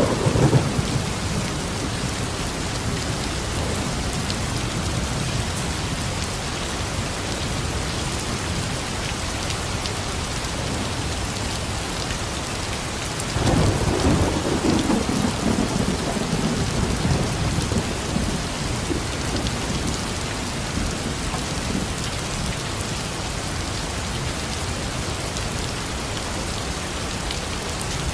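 Steady rain falling on surfaces, with a low roll of thunder rumbling in about halfway through and fading away over several seconds.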